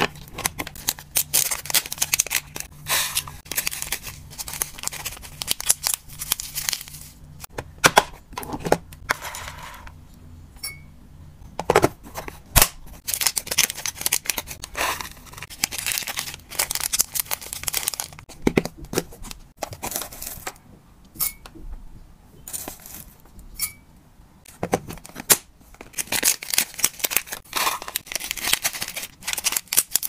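Small clear plastic snack bags crinkling and rustling in the hands as they are filled and handled, with irregular sharp clicks and taps of plastic. A faint low hum sits underneath and fades out about a third of the way through.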